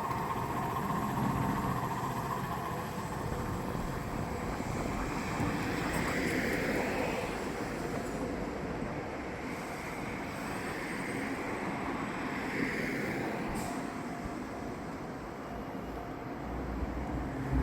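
Nishitetsu electric train running along the track: a steady rumble of wheels on rails, with a brief rise in the higher running noise twice along the way.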